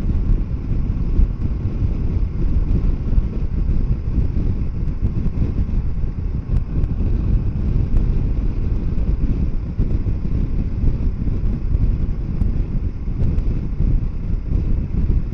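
Steady wind noise buffeting the microphone of a moving Kawasaki Versys 650 motorcycle, with the bike's parallel-twin engine and road noise running underneath at a constant pace.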